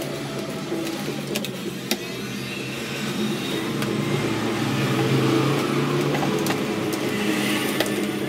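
An engine running steadily and growing louder around the middle, with scattered light clicks.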